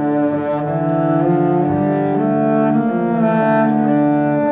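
Background music: bowed strings playing slow, held notes that change every half second or so.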